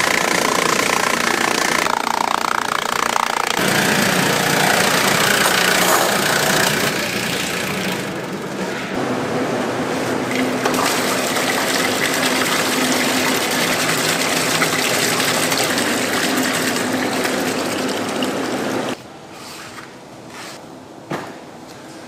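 Steady processing-machine noise mixed with running and splashing water, which drops away sharply near the end to a quiet background with a few light knocks.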